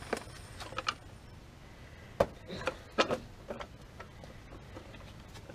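A handful of sharp creaks and knocks from an ATV tire and its rim as a truck's wheel bears down on the sidewall to break the bead.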